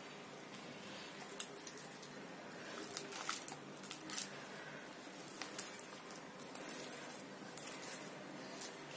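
Hands kneading sticky flour-and-water yeast dough in a glass bowl: faint squishing as the dough is squeezed and pressed, with scattered short sharp clicks, a few of them clustered about three to four seconds in.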